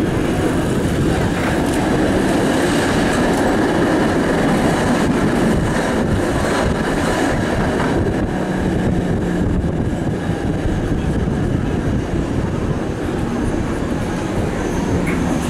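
PCC streetcar heard from inside the car while it runs along street track: a steady rumble of steel wheels on the rails and the running gear.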